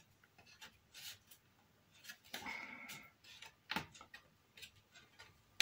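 Faint clicks and scraping of thin wooden kit parts being pressed together by hand as their tangs are worked into slots, with a brief squeak about two and a half seconds in.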